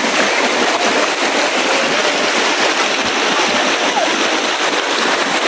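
Shallow river rapids rushing over rocks: a steady, loud rush of water.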